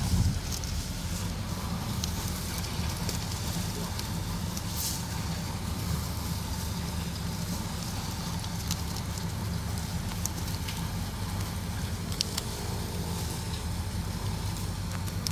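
A steady low motor hum runs throughout, with scattered faint clicks and rustling as a nylon cast net is handled and fish are picked out of it on the grass.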